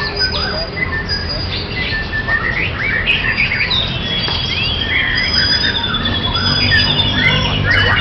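White-rumped shama song: a dense run of varied whistles and chirps, with a long trilled whistle in the middle, over a steady low rumble.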